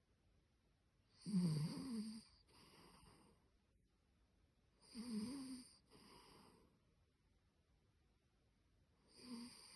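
A maltipoo dog snoring: three snores about four seconds apart, each followed by a softer breath.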